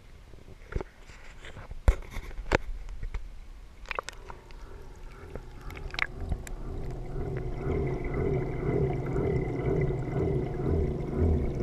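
Sharp clicks and knocks of a GoPro's waterproof housing being handled, then, once it is under water about halfway in, a steady hum with a faint high whine and a low pulsing about twice a second, the saltwater reef tank's circulation pumps heard through the housing.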